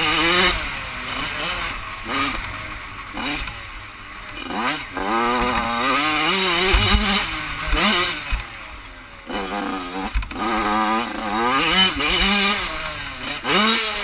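Yamaha YZ85's two-stroke single-cylinder engine revving up and down over and over as the rider works the throttle on rough dirt. The revs rise and fall every second or two, dropping lower about four seconds in and again near nine seconds.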